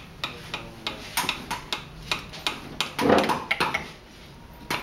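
Wooden mallets tapping the handles of woodcarving chisels driven into blocks of wood: sharp, irregular knocks a few times a second, with a louder cluster about three seconds in.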